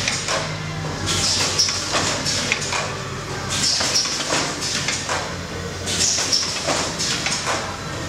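Soltech cheesecake production line running: air hissing in bursts about every two and a half seconds, with clicks and knocks from the pneumatic depositing and indexing gear, over a steady low machine hum.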